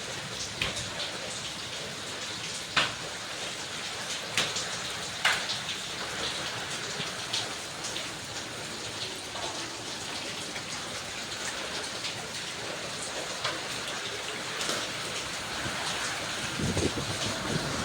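Heavy rain falling steadily, with scattered sharp drips landing on a hard surface, and a short low rumble near the end.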